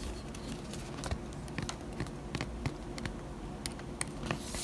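Scattered light clicks and taps, with a brief soft paper rustle near the end, over a low steady hum: pages of an art book being handled and turned.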